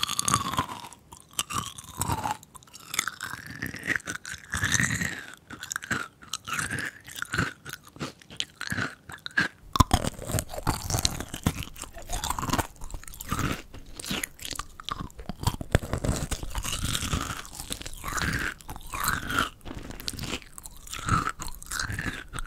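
Close-miked crunching and chewing of kohakutou, Japanese crystallised jelly candy: the crisp sugar crust cracks in many sharp crunches, bite after bite.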